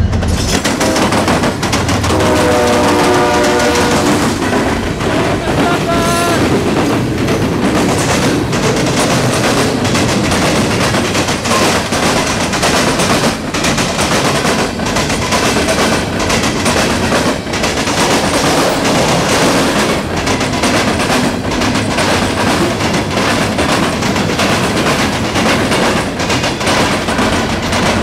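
Diesel freight locomotives passing close, then a long freight train rolling by: a steady loud rumble of steel wheels on rail, packed with rapid sharp bangs as the wheels strike the joints of the crossing tracks.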